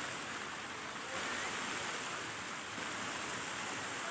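Fountain jets spraying and splashing down into the pool: a steady rush of falling water.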